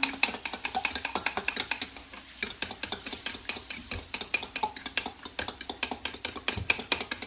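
A kitchen utensil clicking rapidly and evenly against a dish, about five strokes a second, as in beating an egg or stirring.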